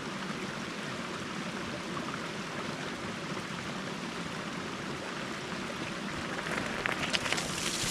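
A shallow creek flowing over a low-water ford across a gravel road, a steady rushing of water. Near the end, splashing crackles grow louder as a bicycle comes through the ford.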